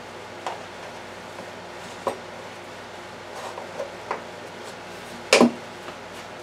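A few light clicks of a plastic spice container being handled, then one louder plastic clack about five seconds in as its snap-on lid is pressed shut.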